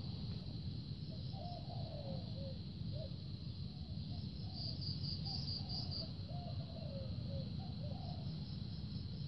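Spotted doves cooing in short, repeated phrases, over a steady high insect trill.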